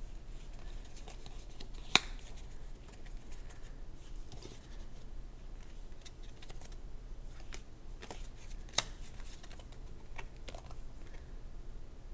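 Uno playing cards being handled one at a time, taken off a stack and laid on a pile, with light clicks and rustles. Two sharper clicks stand out, about two seconds in and near nine seconds in.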